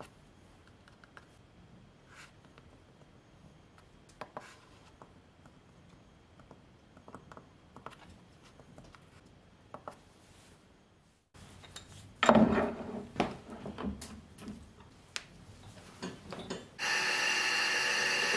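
Faint clicks of keypad buttons being pressed, then a run of metallic knocks and clanks. About seventeen seconds in, a homemade metal lathe starts turning a large metal tube: a sudden, steady, loud machining noise with a whine that holds a constant pitch.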